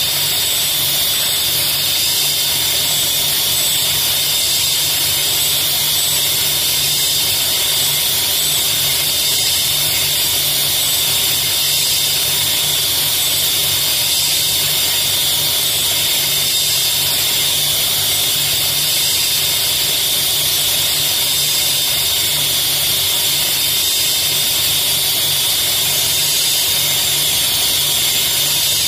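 Diamond laser cutting machine at work: a steady, even hiss with a low hum underneath that does not change.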